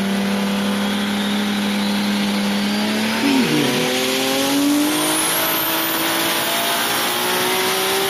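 Racing-car engine sound, revving and climbing slowly in pitch, with a brief dip and recovery about three seconds in, as at a gear change.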